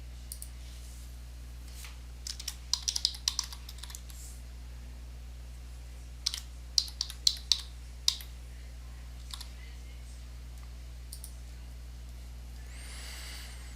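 Computer keyboard keystrokes in two short flurries, about two seconds in and again about six seconds in, over a steady low hum.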